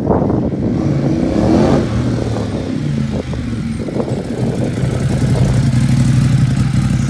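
Ducati Monster 821's L-twin engine as the motorcycle rides up and passes close. It rises in pitch about a second in, then runs low and steady as the bike draws up alongside.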